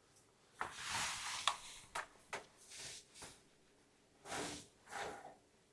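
Faint clicks and rustling from small parts being handled while needles are swapped on a 15-needle embroidery machine. The sounds come as a cluster of short noises in the first three seconds, then two more about four and five seconds in.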